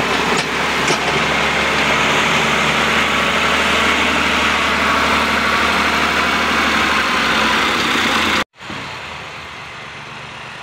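Farm tractor's diesel engine running steadily close by as its rear blade pushes soil. It cuts off suddenly about eight and a half seconds in, leaving a fainter engine sound further off.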